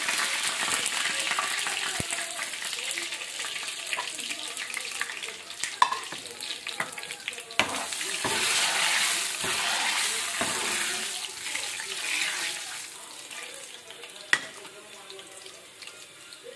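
Garlic, cumin and curry leaves sizzling in hot oil in a small aluminium pan for a tadka, stirred with a metal spoon that clicks against the pan a few times. The sizzle swells again in the middle and dies down near the end.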